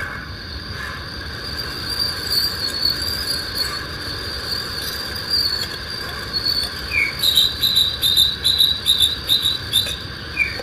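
Insects, crickets or similar, trilling steadily in the background of the recording. About seven seconds in, a faster pulsing chirp joins, at about three pulses a second, for a few seconds.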